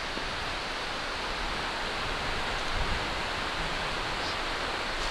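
Steady rushing of running water, like a stream or small waterfall, with a couple of soft low thumps near the middle.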